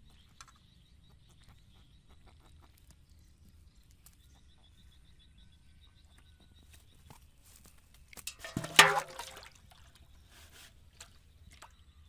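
A catfish splashing and thrashing in a basin of shallow water about eight seconds in: one loud splash lasting about a second, with a few smaller splashes after it.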